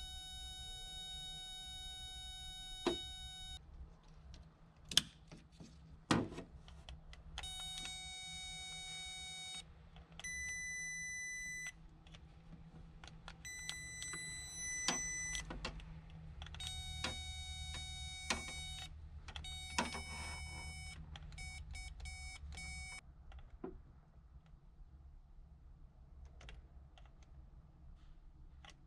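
Electronic beeping tones, each held steady for one to three seconds and repeated several times over, mostly at one lower pitch with two stretches at a higher pitch. A few sharp clicks fall in between.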